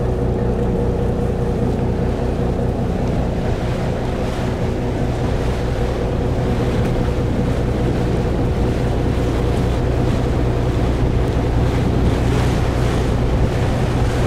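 Fishing boat's engine running steadily at low speed: a constant low drone with a thin steady hum above it, over the rush of water along the hull.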